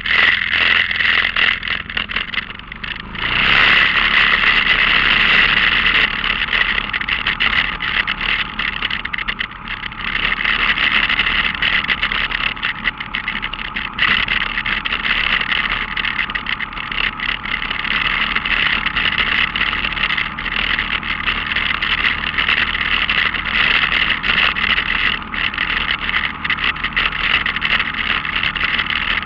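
ATV engine running steadily while the quad drives along a dirt trail, heard close up from the front of the machine; it gets louder about three seconds in.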